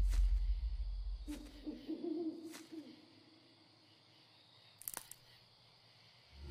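A deep boom fading away, then an owl hooting with a wavering call about a second and a half in. A few faint clicks follow, then near silence.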